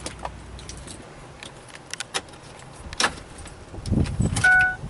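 Small plastic clicks and light rattling as the new multifunction switch is fitted back onto the Ford F550's steering column, with a sharper snap about three seconds in and a couple of dull thumps near the end. A short electronic beep sounds just before the end.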